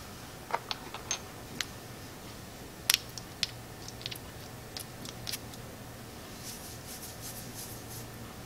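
Small sharp clicks and taps from handling a small metal-capped perfume sample spray vial as it is uncapped and its pump is worked over the wrist, the loudest a double click about three seconds in. Near the end, soft sniffing as the scent is smelled.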